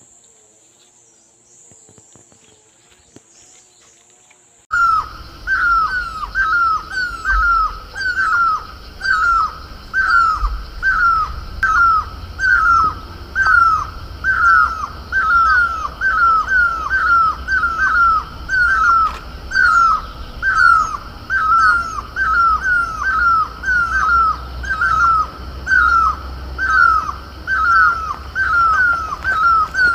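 A parakeet calling over and over, short downward-slurred notes at about two a second, over a low steady rumble. The calls start suddenly about five seconds in, after a quiet stretch.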